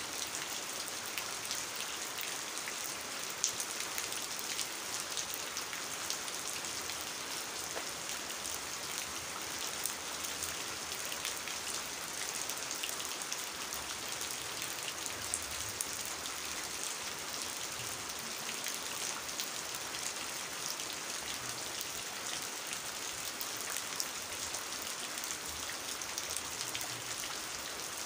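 Steady rain falling on a muddy puddle and the plants beside it, with small drop ticks here and there.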